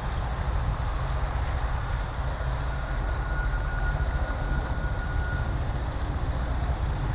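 Heavy tropical rain pouring steadily, with wind buffeting the microphone as a low rumble.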